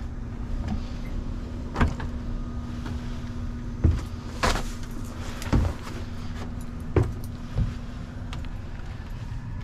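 Irregular knocks and thumps, about half a dozen, with rustling in between, from a person moving about in an attic and stepping across joists. A steady low hum runs underneath.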